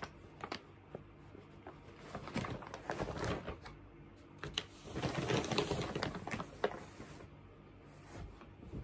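Brown kraft paper shopping bag crinkling and rustling as it is handled and opened, in two bursts of crackling about two and five seconds in.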